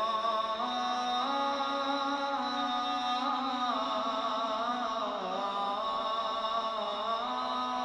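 A man chanting the adhan, the Islamic call to prayer, in one long drawn-out melodic phrase whose pitch turns slowly up and down.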